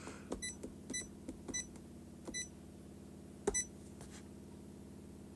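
Orisec alarm panel keypad giving a short beep with each key press, about five presses at an uneven pace, with soft clicks of the buttons and a louder knock about three and a half seconds in.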